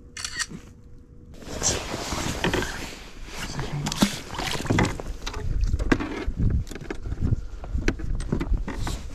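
Water splashing and sloshing beside a kayak as a perch is dropped back into the lake, with scattered knocks and handling noise against the kayak's hull.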